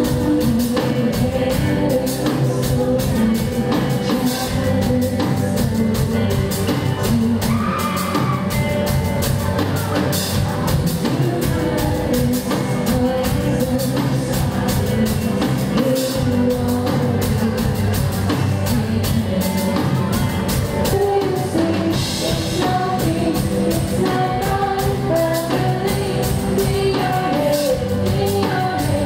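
A woman singing live into a handheld microphone over rock music with drum kit and guitar, heard through the venue's sound system.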